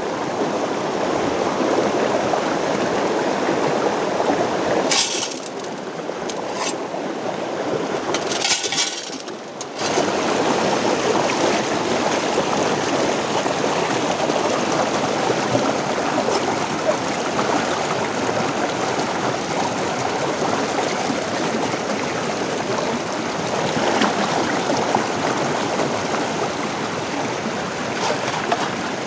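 Fast stream water rushing over rocks, a steady noise. Between about five and ten seconds in it turns quieter and duller for a moment, with a few sharp knocks.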